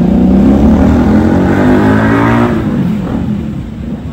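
Motor scooter engine accelerating away from the fuel pump, its pitch rising for about two and a half seconds before it fades out.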